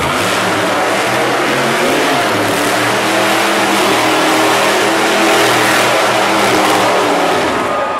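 Monster truck engine revving hard, its pitch rising and falling as the truck drives and turns. The engine noise drops away just before the end.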